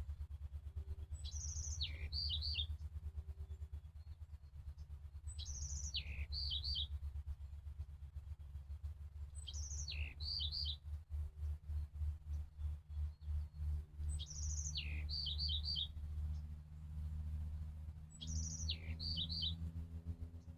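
A songbird repeating the same short song phrase about every four seconds: a quick high trill, a note sliding down, then three or four quick clipped notes. A steady low rumble runs underneath and flutters rapidly midway through.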